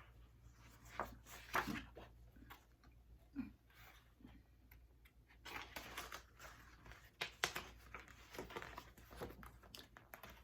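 Faint paper rustling and light clicks from a picture book being handled and its pages turned, over a steady low hum.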